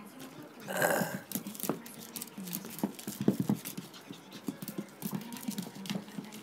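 Shih Tzu panting close by, with many small sharp clicks and a short rushing burst about a second in.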